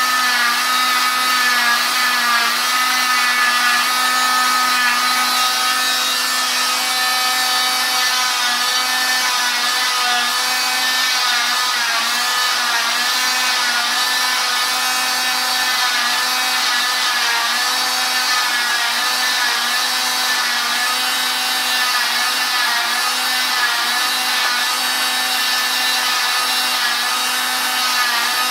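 Oscillating cast saw with a dust-extraction hose cutting through a fiberglass cast, running as a steady whine over a hiss, its pitch wavering slightly as the blade works into the cast.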